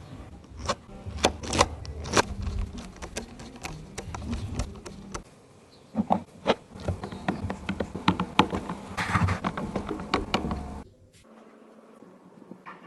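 A small electric motor buzzing steadily, with many sharp clicks and knocks over it; the buzzing cuts off suddenly about eleven seconds in.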